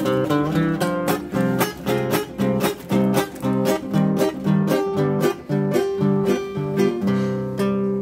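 Nylon-string classical guitar playing rhythmic strummed chords, the instrumental introduction to a sung piece.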